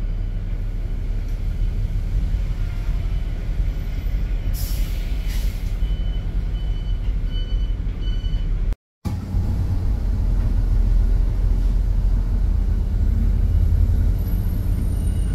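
Steady low rumble of a running vehicle, with a short hiss about four and a half seconds in and a run of short high beeps a couple of seconds later. The sound cuts out for a moment about nine seconds in.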